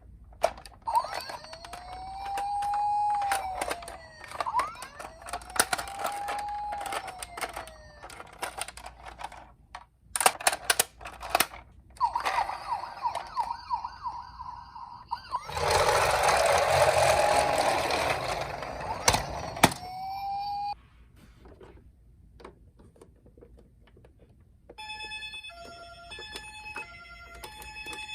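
Electronic siren of a toy ambulance minicar sweeping up and down several times, among sharp plastic clicks and rattles of toys being handled. A loud rushing noise comes about two-thirds of the way through, and a short tune of stepped electronic beeps plays near the end.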